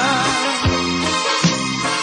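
Music: a pop song with a steady beat.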